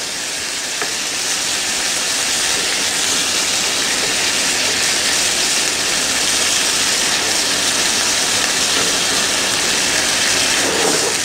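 Sliced pork kidneys sizzling steadily in a frying pan over high heat, with the liquid the kidneys have given off bubbling and cooking away.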